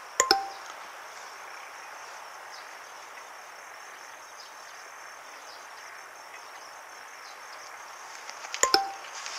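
Steady outdoor background hiss with insects chirping faintly in the grass. A short falling two-note electronic blip, a chat-message sound effect, sounds just after the start and again near the end, louder than the background.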